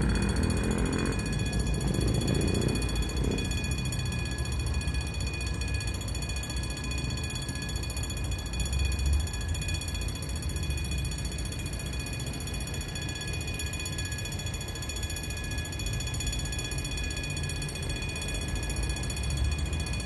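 Mechanical OSPA Saxby-type level-crossing bells ringing without a break, a rapid metallic clatter that warns of an approaching train. Road traffic rumbles underneath, heaviest in the first few seconds as the barrier comes down.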